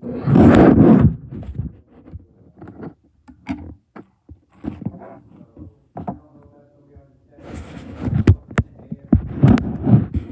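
Loud rustling and thumping, one burst at the start lasting about a second and a longer stretch near the end, with scattered knocks and two sharp clicks in between.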